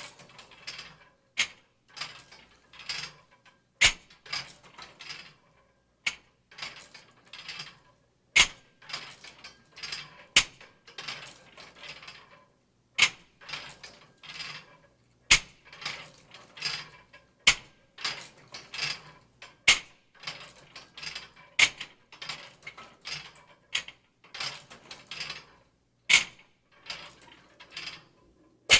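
Irregular run of short hits and slaps from boxing or wrestling, about two a second, with a sharper, louder crack every few seconds.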